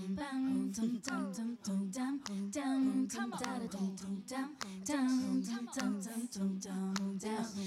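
A woman singing a melody over a steady, held low vocal tone and a regular percussive clicking beat: a one-woman performance with her own voice layered through foot-operated loop pedals.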